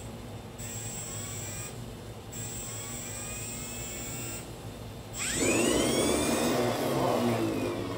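3D-printed axial-flux brushless DC motor run by a sensorless ESC. A high electronic whine cuts in and out while the motor turns over, then about five seconds in it surges to a fast spin with a sharply rising whine and a loud rough buzz. The pitch sinks slowly near the end.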